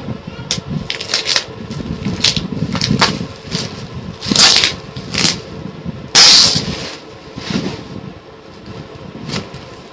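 Plastic packaging rustling and crinkling as a parcel is unwrapped: a plastic sack is pulled off a cardboard box wrapped in stretch film. It comes in a series of short, sharp bursts, the loudest about six seconds in.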